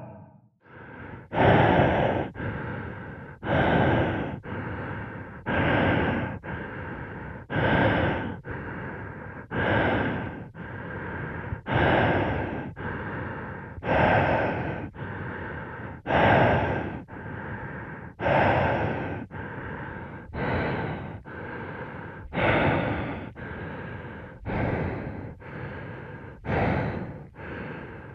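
Breathing sound effect of a suited diver, slow and regular: a louder breath about every two seconds, each followed by a softer one.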